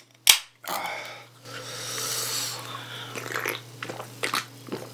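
A small Pepsi can cracked open with a sharp pop about a third of a second in, then a hiss of fizzing carbonation for a couple of seconds. After that come several quick gulps as the cola is drunk straight from the can.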